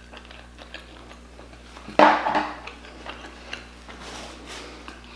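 Close-miked chewing of a large mouthful of lobster tail, with many small wet mouth clicks and smacks. A brief, loud muffled sound comes about two seconds in.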